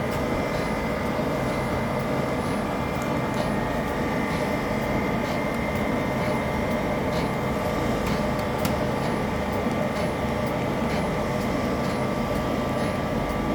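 Ice cream plant machinery running: a steady mechanical hum with a constant high whine and faint ticks about once a second.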